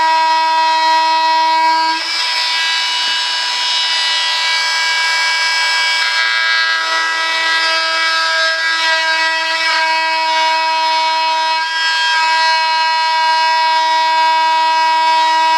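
Handheld oscillating multi-tool running with a steady whine while its blade cuts the rudder out of the tail fin of a model jet. From about two seconds in, a rough cutting noise runs over the whine; near the end the whine is clear again as the blade runs freer.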